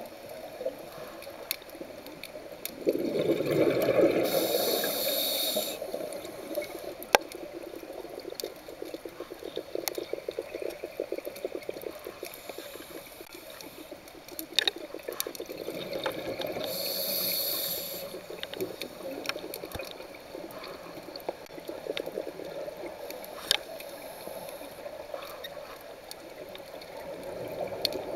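Scuba diver breathing through a regulator underwater: twice a high hiss of drawn air and a rumbling gush of exhaust bubbles stand out, with a steady crackle and small clicks between breaths.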